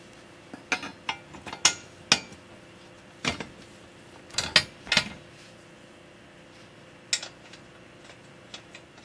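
Irregular sharp metal clinks and knocks as a steel bolt, washer and nylon lock nut are handled and fitted at the pivot joint of a steel tricycle frame, with a quick cluster of them about halfway through.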